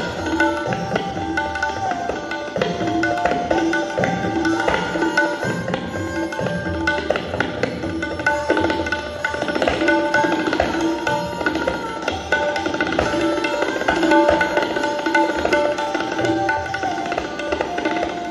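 Tabla solo in teentaal: fast, dense strokes on the tabla pair over a sarangi bowing a repeating melody (the lehra) with sliding notes.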